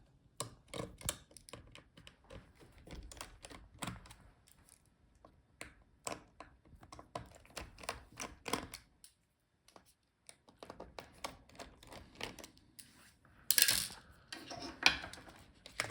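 Irregular small clicks and taps of a screwdriver backing out small screws and of parts being handled inside an open laptop, with a brief pause about nine seconds in and a louder scrape about thirteen seconds in.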